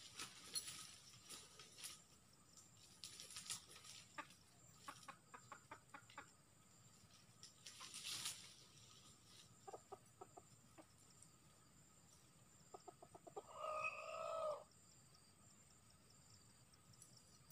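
Junglefowl rooster clucking in quick runs of rapid notes, then giving one loud call of about a second roughly fourteen seconds in. Brief rustles of undergrowth come in between.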